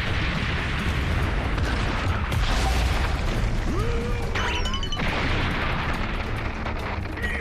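Anime battle sound effects: a dense, continuous rumble of booms and crashing impacts as giant limbs slam into rocky ground. About four and a half seconds in, a short high tone falls in pitch.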